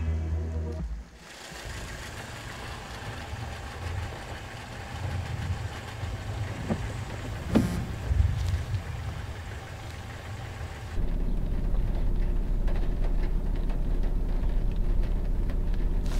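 Car engine idling, heard from inside the cabin as a low rumble. About eleven seconds in it becomes a louder, steady low hum. A single sharp click comes a little past halfway.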